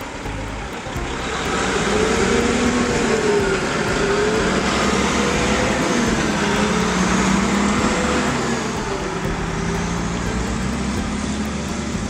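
Loaded log truck's diesel engine running as the truck pulls through a turn and past. The engine note rises and falls, and it grows louder a second or two in.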